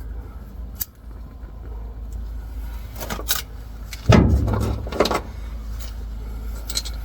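Hand wrench working the bolts on a truck's rear differential cover: metal tools clinking and scraping in short bursts, loudest about four seconds in.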